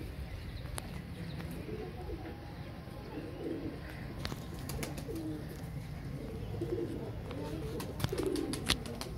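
Domestic pigeons cooing over and over, low rolling coos. A few sharp clicks come near the end.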